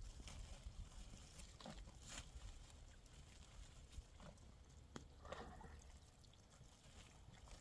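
Near silence, with a few faint scattered taps and knocks and a brief faint murmur about five seconds in.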